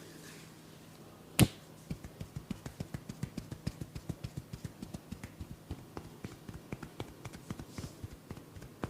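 A single sharp snap about a second and a half in, then hands rapidly tapping on a head during a head massage, about five or six even taps a second.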